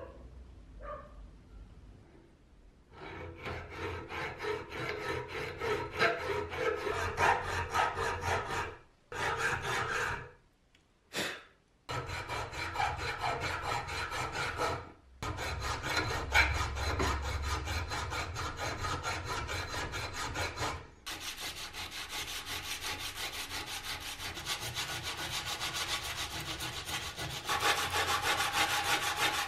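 Hand filing on the steel jaw of a rusty antique adjustable wrench clamped in a vise: rhythmic back-and-forth scraping strokes in several runs with short pauses, as the crooked jaws are trued and the rust is taken off. Later the rasp gives way to the denser rub of sandpaper on a wooden block worked quickly over the jaw, loudest near the end.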